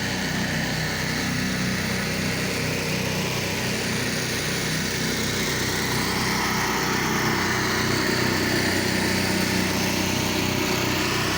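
Pressure washer's small gasoline engine running steadily, with an even hiss over it.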